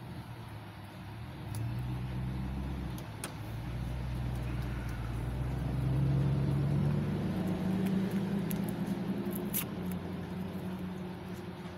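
Car engine heard from inside the cabin, its low hum rising in pitch as the car picks up speed, then holding steady. A light click sounds near the end.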